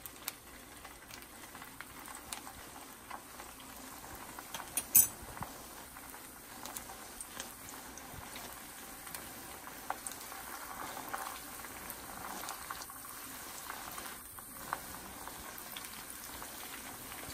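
Batter-coated cauliflower florets deep-frying in hot oil in a kadai: a steady sizzle full of small crackles and pops. A sharp click stands out about five seconds in.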